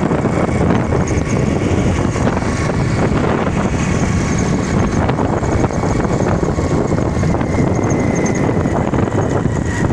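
Heavy wind buffeting on the phone's microphone while riding a motorcycle, with the bike's engine running underneath.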